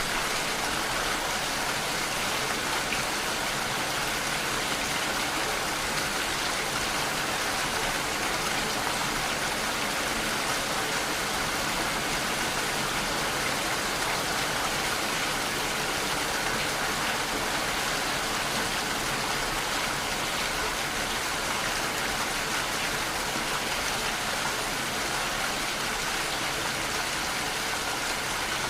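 Steady rain, an even, unchanging hiss of falling water.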